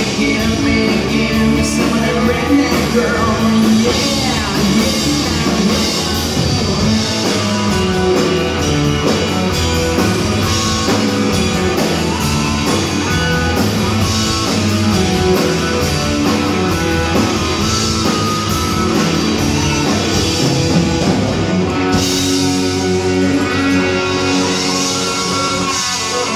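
Live country-rock band playing on electric guitars and a drum kit.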